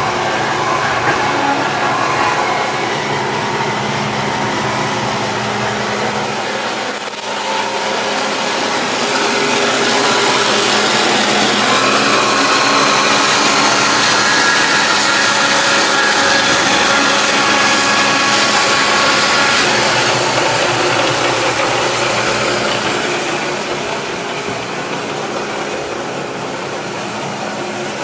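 Band sawmill running with its blade cutting lengthwise through a log, a steady mechanical whine and rasp that grows louder through the middle of the cut. The band is wearing out and getting dull.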